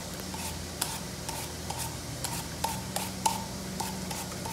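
Handheld Tupperware vegetable peeler scraping the skin off a raw potato in quick, short strokes, about two to three a second, over a steady low hum.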